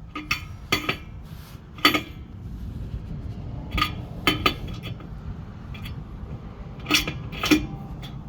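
Wrench clinking against a metal air-line fitting: about eight sharp metallic clinks at uneven intervals, some in quick pairs, over a steady low rumble.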